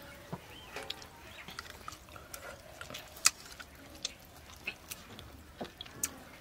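Close eating sounds of a man chewing a handful of rice and duck curry eaten with his fingers: scattered small wet smacks and clicks, with one sharp click about three seconds in.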